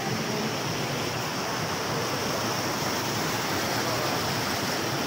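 Stream water rushing steadily over boulders and small cascades, an even unbroken rush.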